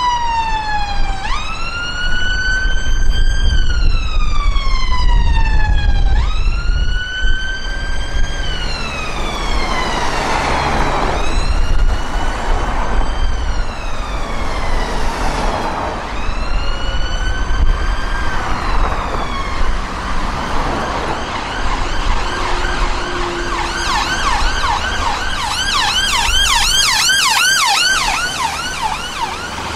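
Ambulance sirens in traffic: a slow wail rising quickly and falling slowly over about four seconds each cycle, with a second siren overlapping in the middle, then near the end a fast yelp repeating several times a second. Low traffic rumble underneath.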